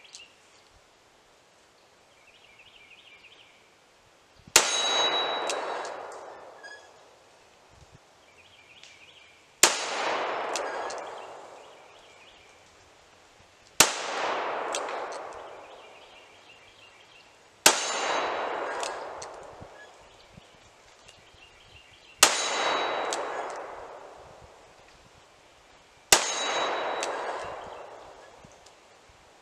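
Six shots from a Smith & Wesson .44 Hand Ejector 3rd Model revolver in .44 Special, fired slowly about four seconds apart. Each sharp report is followed by a long echo that dies away over two to three seconds.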